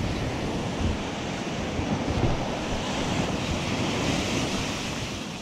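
Atlantic surf: small waves breaking at the shoreline and washing up over the sand in a steady hiss.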